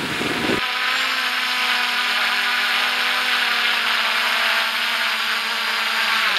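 MJX Bugs 3 quadcopter's brushless motors and propellers whirring with a steady, even whine and a strong airy hiss. From about half a second in, no wind gusts are heard with it. Near the end the whine falls in pitch and fades.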